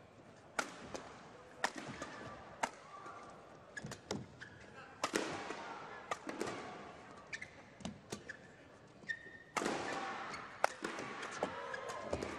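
Badminton rally: rackets strike the shuttlecock in sharp cracks every half second to a second over crowd noise. About nine and a half seconds in the rally ends and the crowd cheers.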